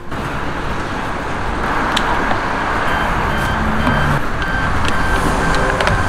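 A steady rushing noise like road traffic, with a few faint clicks.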